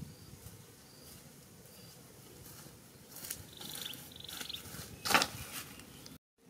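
Footsteps and rustling through grass, with short insect trills from the surrounding brush in the middle. About five seconds in, a sharp clatter as an armful of sticks and a cleaver are set down on the ground.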